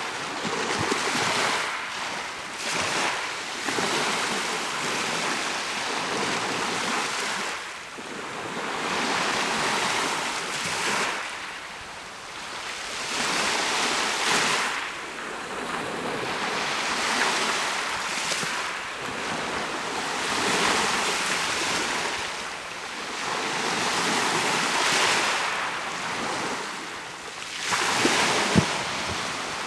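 Mediterranean sea waves breaking and washing on the shore, the surf swelling and ebbing every few seconds. Some wind buffets the microphone, and there is a brief sharp knock near the end.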